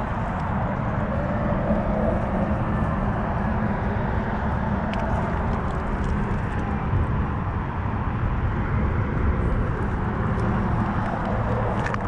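Steady low mechanical hum with a constant drone, without a change in pitch or level.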